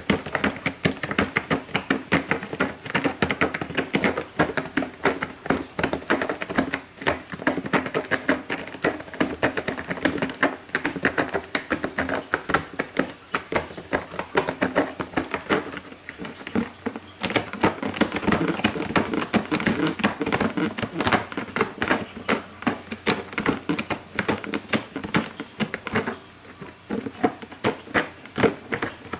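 A cat busy with its head down in a cardboard box close to the microphone: a dense, rapid run of clicks and rustling that keeps on with a few short breaks.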